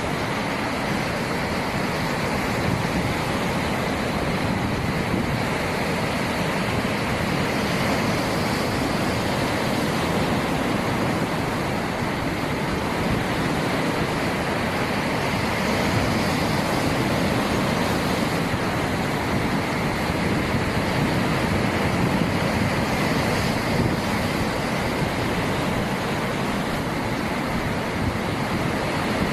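Ocean surf: waves rolling and washing in a continuous, even rush, rising and falling only slightly in level.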